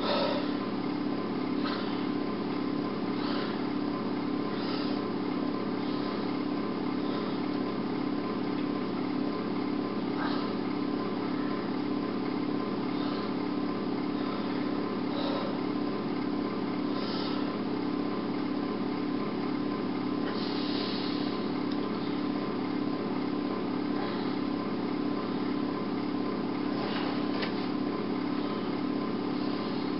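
A steady low hum over constant hiss, with a few faint clicks.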